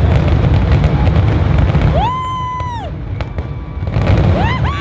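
Fireworks display banging and crackling in a dense volley that eases off about two seconds in. A drawn-out high call rises, holds and falls, followed near the end by several overlapping whoops from the watching crowd.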